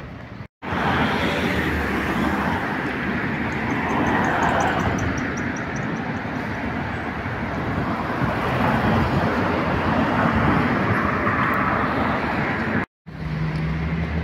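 City street traffic: cars passing on the road as a steady rushing noise that swells and fades, with a short run of fast, high ticks about four seconds in. The sound drops out abruptly for an instant twice, near the start and near the end.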